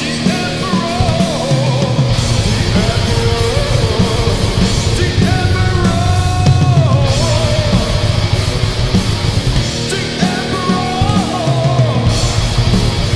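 Thrash metal recording: distorted electric guitars riffing over bass and a drum kit with steady cymbals, with a wavering melodic line coming in and out on top.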